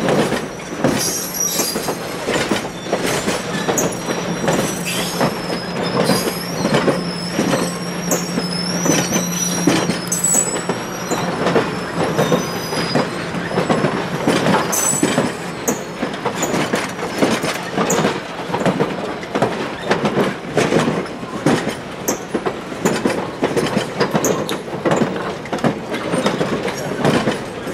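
Steel passenger coaches rolling past, their wheels clicking and clattering over the rail joints, with a wavering high-pitched wheel squeal through the first half.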